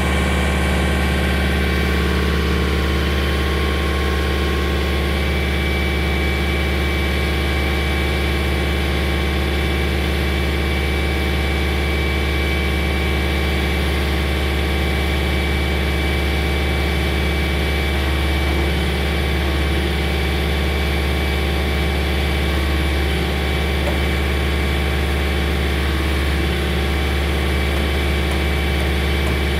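Volvo MW500 cold planer's diesel engine running steadily at constant speed while its hydraulics raise the loading conveyor. A steady high whine joins about five seconds in.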